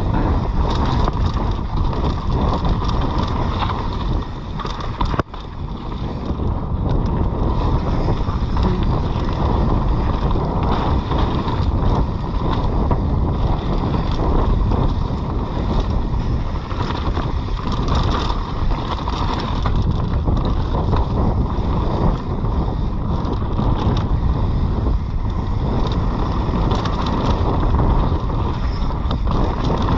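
Mountain bike riding down a rough dirt trail: wind buffets the on-bike or helmet camera microphone over the constant rattle and clatter of the bike and tyres. It goes briefly quieter about five seconds in.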